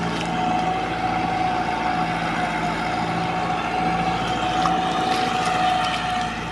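Combine harvester running steadily under power, with a constant engine hum and a thin steady whine over it.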